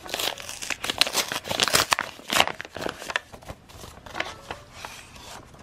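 A paper envelope being torn open and handled by hand: quick bursts of paper crinkling and tearing, busiest in the first few seconds and thinning out toward the end.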